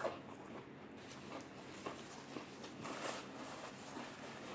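Faint eating sounds: soft chewing and mouth noises with a few small clicks and a brief rustle about three seconds in.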